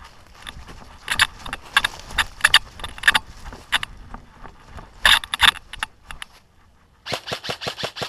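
Footsteps crunching through dry fallen leaves as the player moves through the woods, a few steps a second. Near the end comes a rapid string of about eight sharp snaps from an airsoft rifle firing.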